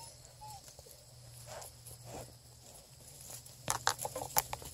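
Hound puppy mouthing and tugging a plush toy chicken on dry leaves and twigs, mostly faint rustling, then a quick cluster of crackles near the end.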